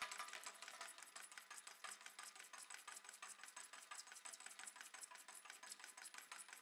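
Electric Eel drain-cleaning machine running faintly, a fast, even clatter of its motor and turning cable.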